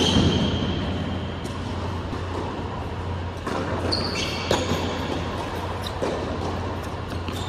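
Tennis ball struck by rackets and bouncing on an indoor hard court, sharp knocks every second or two that echo in the hall, the loudest right at the start. Short high shoe squeaks on the court surface come in near the middle, over a steady low hum.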